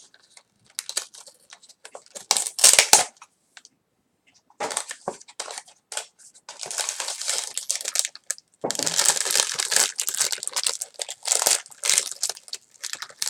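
Toy packaging being torn open and crinkled by hand: scattered rips and rustles, a loud crackle about two and a half seconds in, then steady crinkling through the second half.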